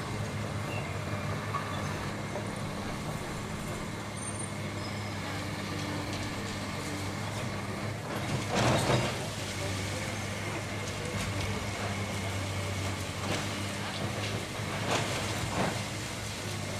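A heavy demolition machine's diesel engine runs steadily, with several crashes of breaking debris. The loudest crash comes about halfway through, and smaller ones follow later.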